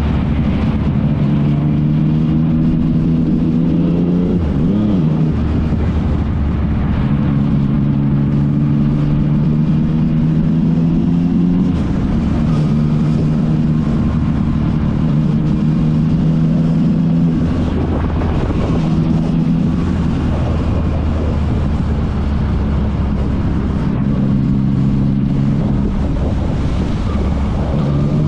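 Yamaha MT-09's inline three-cylinder engine running through an Akrapovic exhaust under way, its note climbing slowly and dropping back several times.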